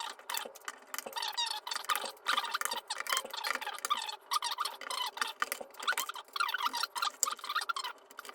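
Keycaps being prised off a mechanical keyboard with a knife: a dense run of small plastic clicks and squeaks as the caps pull off their switch stems.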